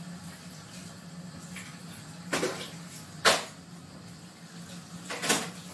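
A steady low hum with three short, noisy rustles from kitchen handling, about a second or two apart, the middle one the loudest.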